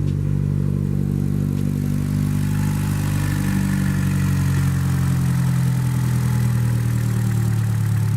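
2015 Chevy Cruze's 1.4-litre turbo four-cylinder idling steadily, its pitch easing down slightly midway as the idle settles. It is running on a new valve cover with integrated PCV valve, and the rough idle caused by the leaking PCV valve is, in the owner's view, fixed.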